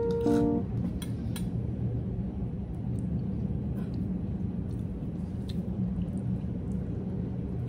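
Steady low room hum with a few faint clinks of a metal spoon against a dish during a meal.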